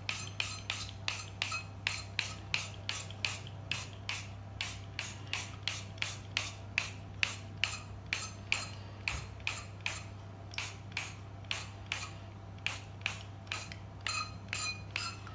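Oil mister spritzing cooking oil into the cups of a metal muffin tin: a rapid, even run of short hissing sprays, about three a second.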